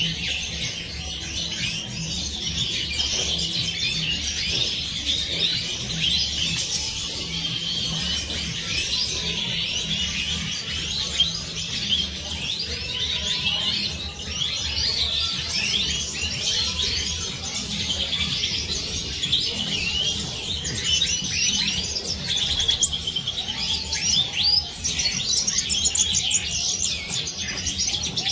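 A flock of Siberian goldfinches singing and twittering together, a dense chorus of quick chirps and trills with no break, over a steady low hum.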